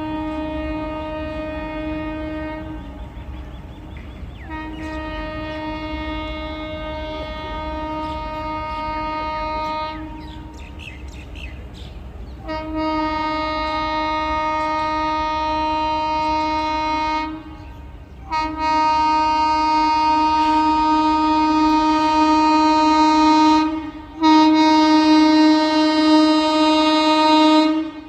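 Express train horn sounding in five long blasts of several seconds each, each one steady note, growing louder over the last three blasts, over the steady low rumble of the train.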